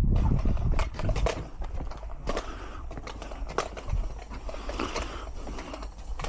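Scattered light clicks and knocks of metal hardware being handled, as a gate hinge is fitted, over a steady low rumble.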